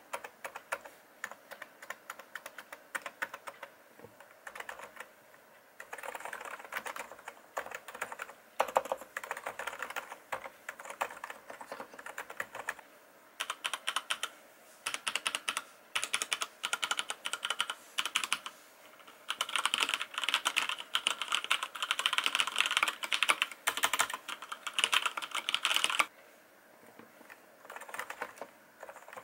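Fast continuous typing on two keyboards in turn: a Realforce R2S-JPV-IV, the silent model with Topre capacitive switches, in the quieter, softer stretches at the start and near the end, and a FILCO Majestouch Convertible2 mechanical keyboard in the louder, brighter stretches of key clacks in the middle.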